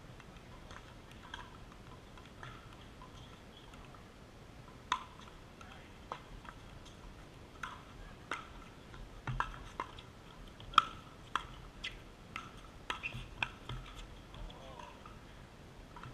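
Pickleball rally: sharp pocks of paddles striking a hard plastic pickleball, with bounces on the court, a few scattered at first, then coming quickly one after another through the middle, the loudest a little before the middle.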